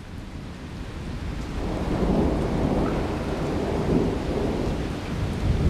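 Rolling thunder: a low rumble that swells about a second and a half in and stays loud, over steady rain.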